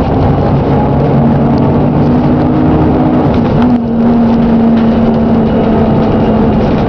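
Diesel engine of a Plaxton President double-decker bus running with a knocking, which the uploader calls a bad engine knock. A brief dip a little under four seconds in, after which a steady tone holds.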